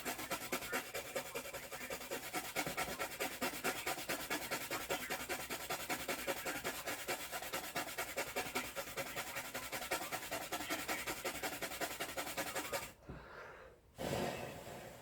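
Rapid, even rubbing strokes, several a second, that stop suddenly about thirteen seconds in; a short lower sound follows near the end.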